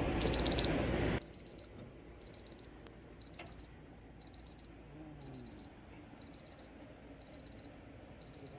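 Digital probe meat thermometer's alarm beeping: quick clusters of high-pitched beeps, about one cluster a second. A louder rush of noise runs under the beeps for the first second.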